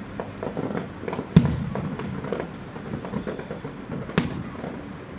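Distant aerial fireworks going off: a scatter of pops and bangs, with a loud bang about a second and a half in and another strong one about four seconds in.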